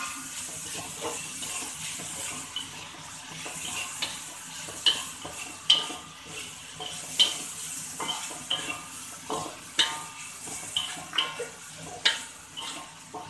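A wooden spatula stirs and scrapes a stir-fry of sliced kepayang seeds and onion around a metal wok, knocking sharply against the pan every second or two. The oil sizzles steadily underneath.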